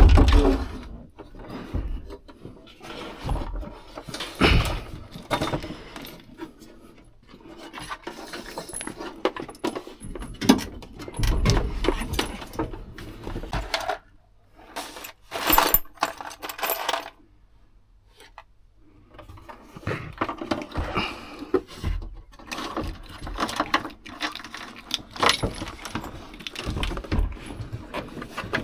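Irregular knocks, clicks and metallic clinks of hand work on a truck cab interior: panels and small metal hardware being handled and fitted. There is a brief quieter stretch about halfway.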